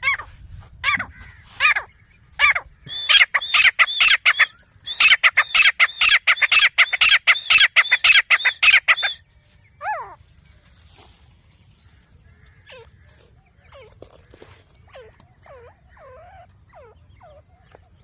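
Grey francolin (teetar) calling: a few loud separate notes, then a long run of shrill repeated notes at about four a second, which breaks off about nine seconds in. Fainter, lower chirps follow.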